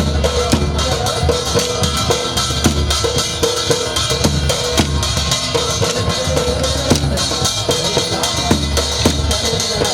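Dhol drums beating a loud, steady, driving rhythm for the gair dance, with many sharp clicks running through it.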